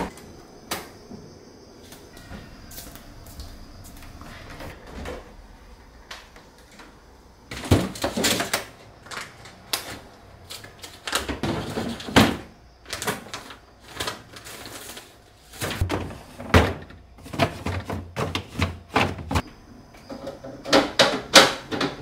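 Refrigerator being emptied by hand: plastic drawers and shelves sliding and knocking, and containers and food packs clattering as they are lifted out and set down, in uneven bursts of clicks and knocks.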